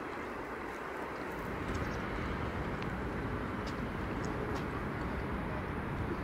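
Steady low rumbling outdoor noise with no clear rhythm, a little louder after about a second, with a few faint short high chirps above it.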